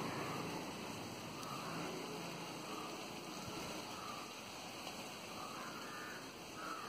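Faint, steady outdoor background hiss with no single clear source.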